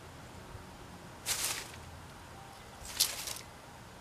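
Two brief rustles of grass stems and dry leaves being brushed and stepped through, about a second in and again about three seconds in, over faint outdoor background.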